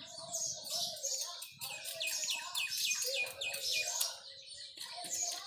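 Small birds chirping, including a quick run of about eight short falling notes from about a second and a half in, with one light knock about four seconds in.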